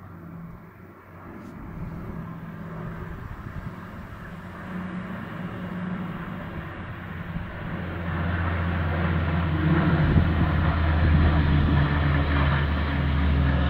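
Military turboprop transport planes (C-130 Hercules and CASA C-295) flying over in formation. Their propellers make a steady low drone that grows markedly louder over the last several seconds as they come overhead.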